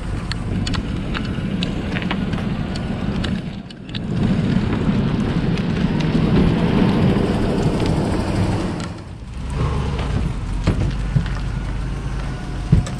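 Wind buffeting the microphone on the water, a steady low rushing rumble that dips briefly twice, about 4 and 9 seconds in.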